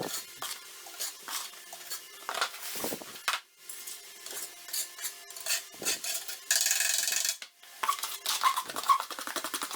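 Metal parts clinking and knocking against each other, with a short burst of hiss about two-thirds of the way through.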